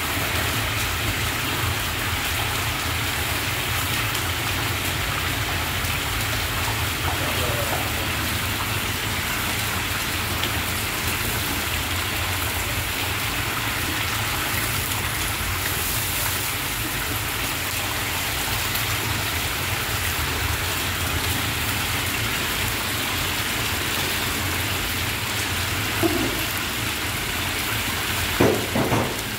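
Large batch of meat frying in hot oil in a big kazan: a steady sizzling hiss, with a steady low rumble underneath. A few short knocks come near the end.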